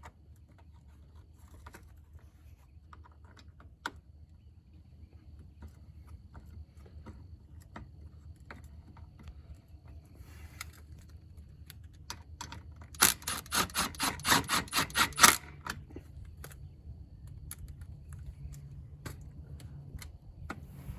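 Light clicks and taps of tools and bolt hardware as the winch's front bezel is fitted. About 13 seconds in comes a quick run of loud, evenly spaced clicks lasting about two seconds, as a bolt is run in.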